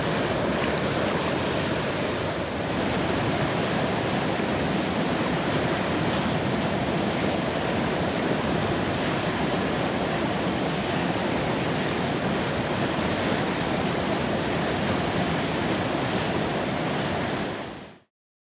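Whitewater of a river rapid's standing wave rushing steadily, a loud, even wash of water noise that cuts off suddenly near the end.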